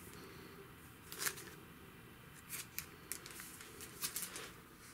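Packaging being handled by hand: a few short crinkles and clicks of plastic sleeve and card, one about a second in and a cluster between about two and a half and four and a half seconds in.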